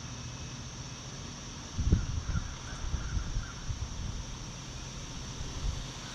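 Wind gusting and buffeting the microphone, with low rumbling surges starting about two seconds in over a steady rush of air. Faint bird calls sound in the background.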